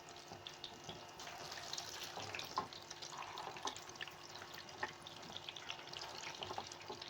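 Chicken shami kababs coated in beaten egg shallow-frying in oil in a pan on low-medium heat: a faint, steady sizzle with scattered small pops and crackles.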